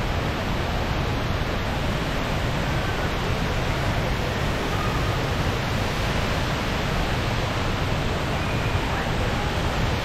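The HSBC Rain Vortex, a 40-metre indoor waterfall, pouring from the roof opening into its pool: a steady, even rush of falling water.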